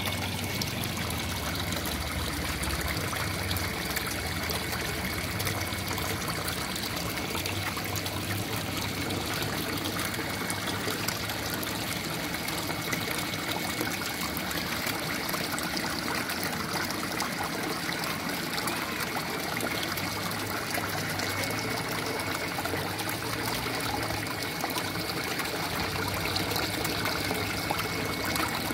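Water trickling and splashing steadily into a concrete eel tank, with a faint steady high tone running under it.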